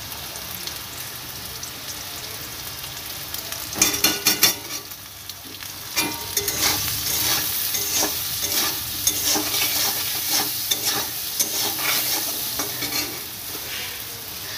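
Potato and raw banana pieces sizzling in oil in a metal kadai, stirred with a metal spatula. From about four seconds in, the spatula scrapes and clatters against the pan again and again.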